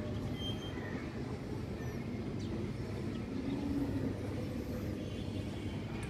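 Steady low rumble of outdoor background noise, with a few faint, short high chirps.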